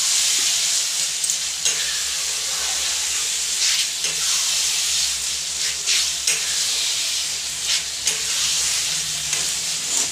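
Tomatoes and spice masala sizzling in hot oil in a kadhai, stirred with a spatula that scrapes the pan every second or two. This is the tomatoes being fried down into the masala.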